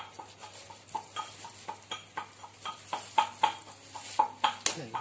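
Large kitchen knife chopping raw meat on a wooden log chopping block: quick, irregular chops, about three or four a second, each a short knock with a brief ring.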